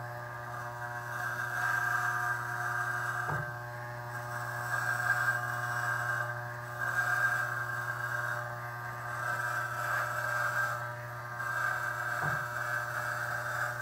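Andis Outliner II magnetic-motor hair trimmer buzzing steadily as it is drawn across a closely shaved scalp. The buzz swells and eases with each pass over the head.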